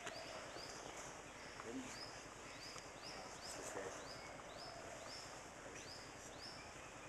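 A small animal calling: a short high chirp that rises and then holds, repeated steadily about twice a second.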